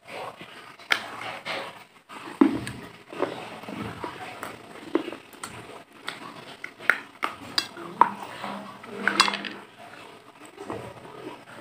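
Close-miked biting and chewing of crisp white food: irregular sharp crunches and crackles, one after another, picked up by a small clip-on microphone held right at the mouth.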